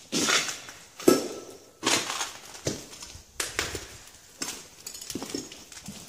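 Footsteps walking at an even pace over a debris-strewn floor, about seven steps, each with a gritty crunch underfoot.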